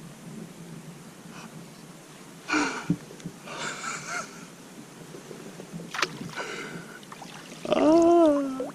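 A man gasping and laughing in short excited bursts, then a loud drawn-out cry that rises and falls in pitch near the end.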